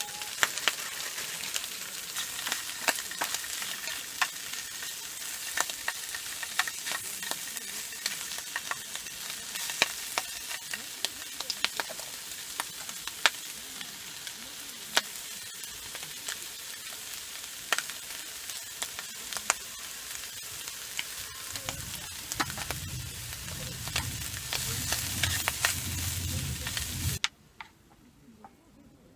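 Food frying in a pan: a steady sizzle with frequent sharp pops. A low rumble joins about three-quarters of the way through, and the sizzle cuts off abruptly near the end.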